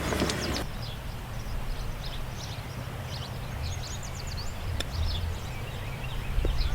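Small birds chirping repeatedly over a low wind rumble on the microphone, with one sharp click about five seconds in.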